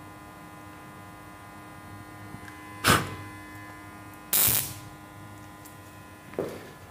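Homemade gas burner with automatic ignition and flame control, under a steady electrical hum. A sharp gust of breath near the 3-second mark blows the flame out, and a second rushing burst of noise follows about a second and a half later as the automatic igniter relights the burner.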